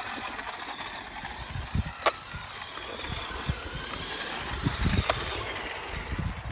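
Radio Shack Golden Arrow RC car's small electric motor whining as the car drives around, the pitch rising and falling with speed, over low rumbling, with two sharp clicks about two and five seconds in. It is running on 18650 cells that are not fully charged.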